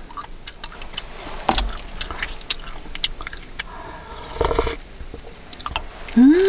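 A spoon clicking and scraping against stainless steel dishes, with eating sounds from a person taking spoonfuls of hot food. Near the end comes a short rising hummed 'mm' of enjoyment.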